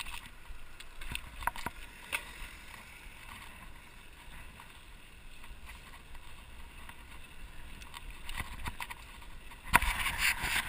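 Mountain bike rolling over concrete block paving: a steady rumble and hiss of the tyres with a few light rattles. Just before the end come several loud knocks and rustling as the camera is handled.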